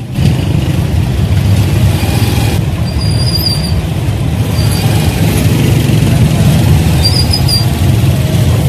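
Steady low engine and road rumble heard from inside a moving vehicle, with two brief high squeaks about three and seven seconds in.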